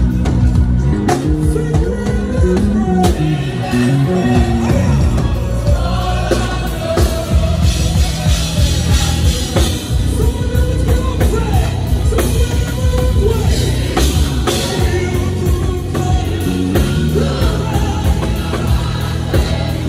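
A live gospel band of drum kit, electric bass guitar and keyboards playing a steady beat, with a singer's voice carrying the melody over it.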